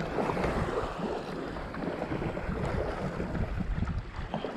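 Wind buffeting the microphone in irregular gusts, over the wash of small waves along the shore.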